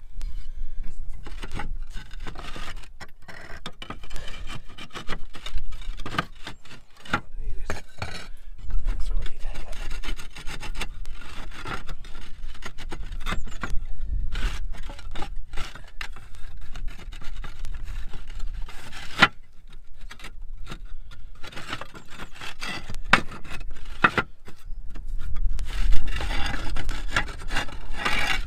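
Clay roof tiles scraping and clicking against one another as a tile notched to fit over a solar roof hook is slid back into place and the tiles around it are lifted and nudged.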